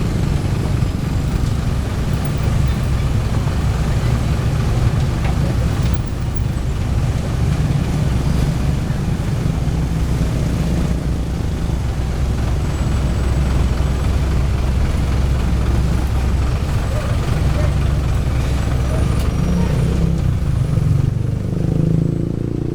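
Heavy diesel engines of an asphalt paver and a dump truck running steadily, a continuous low rumble.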